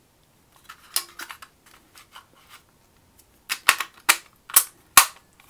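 Handling clicks from the plastic battery compartment of a Sony MZ-N707 MiniDisc Walkman as an AA battery is fitted: a few soft taps, then a run of about five sharp clicks in the last two seconds.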